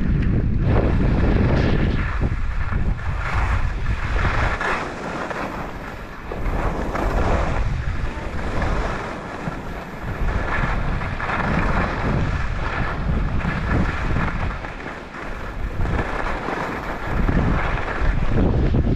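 Wind buffeting the microphone during a fast downhill run on snow. Under it, the hiss of edges carving through packed snow swells and fades with each turn.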